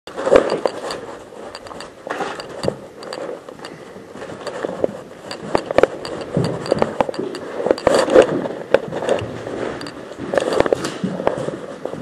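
A door or panel being pushed and worked by gloved hands: irregular scrapes, sharp clicks and knocks, in clusters every second or two.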